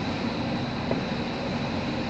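Steady background hum and hiss with a faint high whine running through it, and one light click about a second in.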